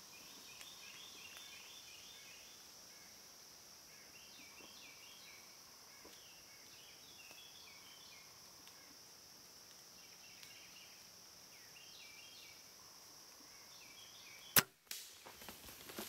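A bow firing an arrow: one sharp snap near the end, the loudest sound, followed at once by deer bolting through dry leaves. Before it, a steady insect drone and repeated chirping calls.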